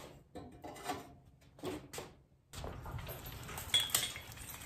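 Scattered metallic clinks and knocks of hand tools and parts being handled on an engine on a stand. About halfway through, a steady background hiss comes in, with sharper metal clanks near the end.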